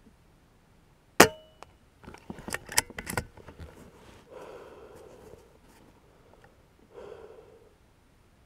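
BSA Ultra SE .22 PCP air rifle, moderated, firing one pellet: a single sharp crack with a short ring about a second in. A quick run of clicks follows as the rifle is cocked and the next pellet is chambered from the magazine.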